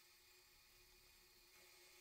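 Near silence: a faint steady hiss with a thin steady hum underneath.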